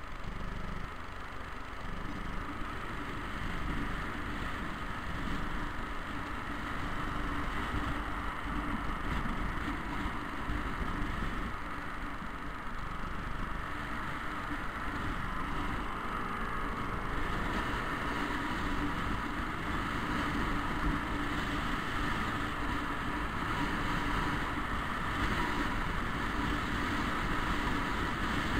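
Motor scooter riding in traffic: steady engine drone mixed with wind rumble on the microphone.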